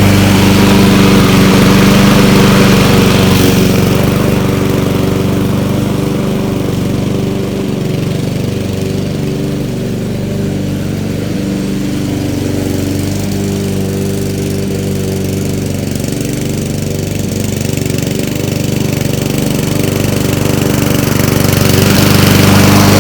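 Gasoline walk-behind lawn mower engine running steadily while mowing grass with a blade that has not been sharpened. It fades somewhat in the middle and comes back louder near the end.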